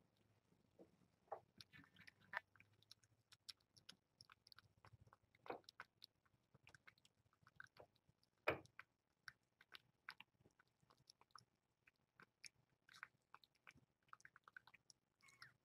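Cat eating from a bowl: faint, irregular chewing and crunching clicks, with one louder click about eight and a half seconds in.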